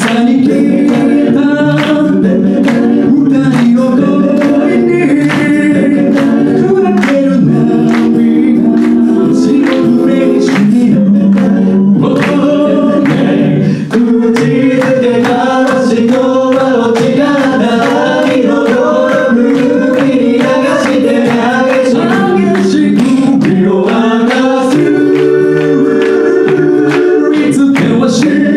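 A cappella vocal group singing in several-part harmony over a steady percussive beat.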